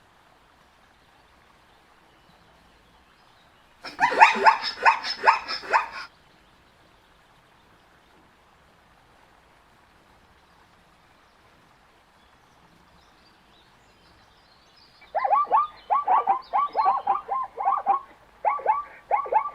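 Zebra calling: a two-second run of quick barking brays about four seconds in, then after a pause a longer series of rapid repeated barks from about fifteen seconds on.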